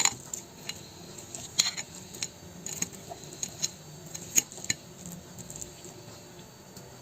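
Cutlery clicking against a plate: a handful of light, separate taps spread over the first five seconds as potato pancakes are cut and tasted.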